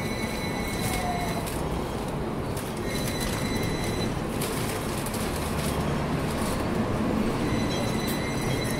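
Hong Kong double-decker electric tram running on street track: a steady rumble of wheels on the rails with a faint, high, steady wheel squeal.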